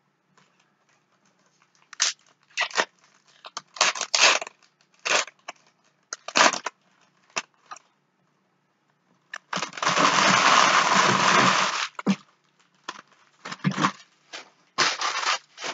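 Foil trading-card pack wrappers crinkling and tearing open in short, sharp bursts, with one longer stretch of about two seconds just past the middle.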